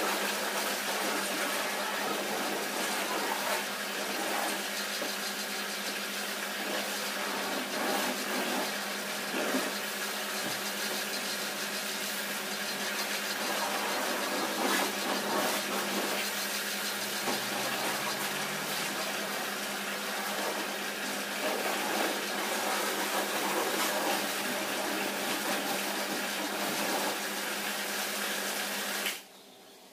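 Pressure washer running: a steady motor hum under the hiss and spatter of the water jet on a car body. It stops abruptly near the end.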